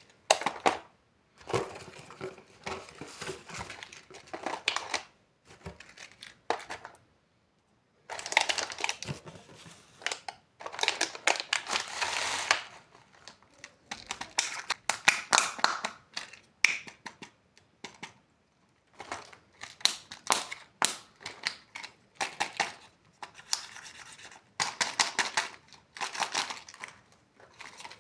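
Surprise-egg wrappers and plastic packaging being crinkled, torn and snapped open by hand, in irregular bursts of crackling with sharp clicks and a few short pauses.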